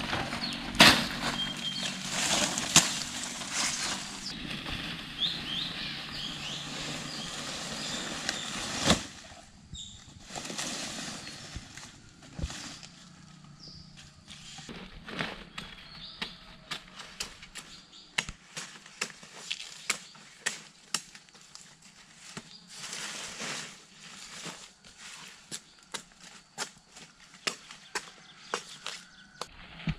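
Close rustling of leaves and stems as large leaves are picked from the undergrowth, changing about nine seconds in to sparser crunching and crackling on dry leaf litter as the leaves are laid over a pole roof frame.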